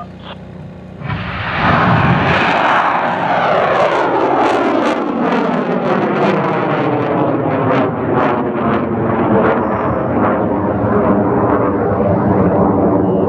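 Rocket engine firing at liftoff: a loud rush of exhaust noise starts about a second in and holds steady as the rocket climbs away, with a sweeping, falling whoosh and sharp crackling throughout.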